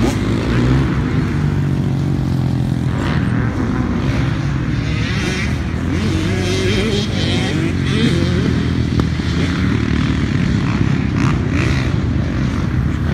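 Several dirt bike engines running at once, revving up and down, their rising and falling pitches overlapping.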